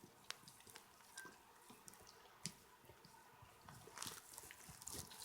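A dog licking and smacking its lips at peanut butter on its nose: faint, scattered wet clicks.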